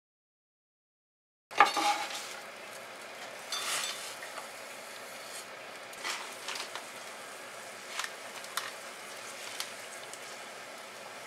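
Kitchen handling sounds at a stainless-steel pot of water as ingredients go in. The sound cuts in after a moment of dead silence with a sharp clatter, the loudest sound. It is followed by a short rustle and a few light clicks and taps, over a steady low hiss.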